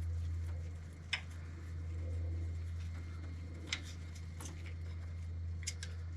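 A few faint, sharp clicks and taps of engine parts being handled during timing chain removal, over a steady low hum.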